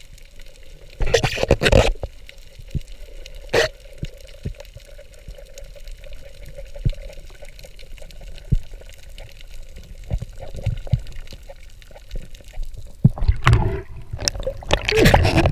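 Underwater sound heard through a camera housing: water moving and bubbling, with scattered clicks and a louder rush about a second in. Near the end there is louder splashing as the camera breaks the surface.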